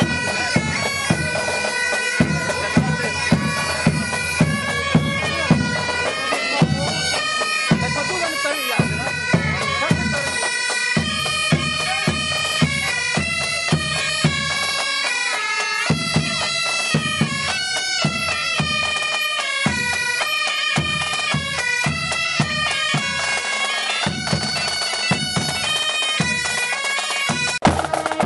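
A pipe band playing bagpipes in a march, the pipes holding a steady drone under a melody that steps from note to note, with a drum striking a regular beat underneath.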